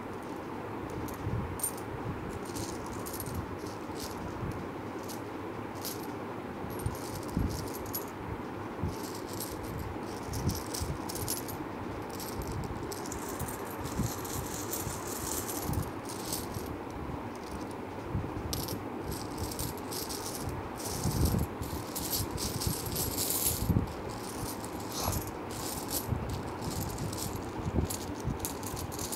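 Indian paise and rupee coins clicking and clinking against one another as a hand slides and picks them up on a cloth, in many small, irregular clicks, over a steady background noise.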